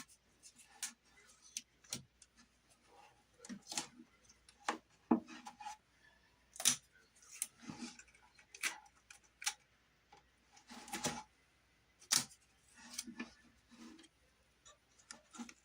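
Scattered light taps, clicks and short rustles at irregular intervals: hands handling a ceiling beam and its tape while fitting it in place.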